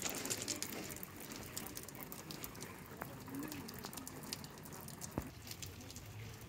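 Brine trickling down through the blackthorn-twig walls of a graduation tower: a steady patter of many small drops, like light rain, with one sharper tick a little past five seconds in.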